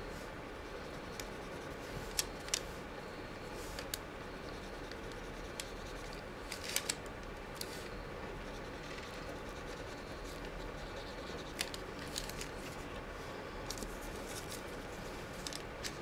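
Soft scratching and scattered light clicks of a water brush picking up watercolour from a pan palette and stroking it across paper, over a steady faint background hum.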